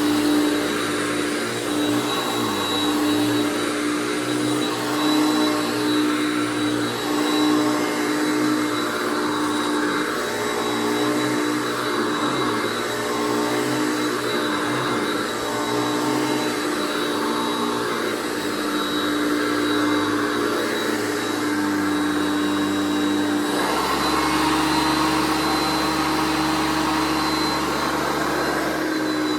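Hoover Concept One U4205 upright vacuum cleaner running with a steady whine and rush of air, smooth for its type, which the owner puts down to an upgraded fan. Its low hum shifts noticeably about three-quarters of the way through.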